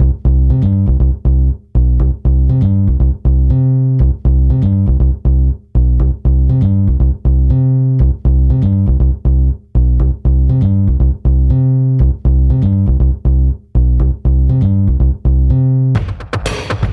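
Outro music: a bass-heavy plucked melody with a steady beat, turning into a louder passage with drums and percussion about a second before the end.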